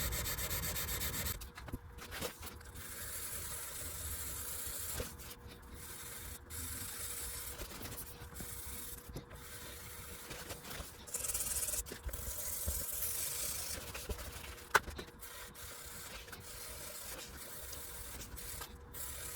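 Wet sanding of a thin super glue finish with 600-grit sandpaper: soft rubbing in stretches with brief pauses, over a faint steady hum, and a single sharp click about fifteen seconds in.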